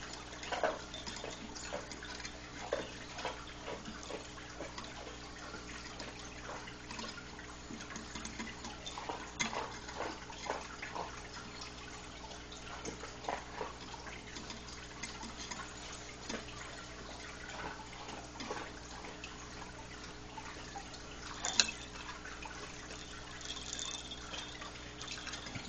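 Scattered light taps, scratches and rattles from a kitten playing with a ball-on-a-spring toy and clambering on a wooden chair's rungs, over a steady low hum, with one sharper click late on.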